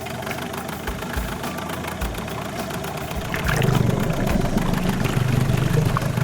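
15 hp Yamaha outboard motor running with a 3D-printed wood-filament propeller under test. About three and a half seconds in, it gets louder and heavier as it is throttled up.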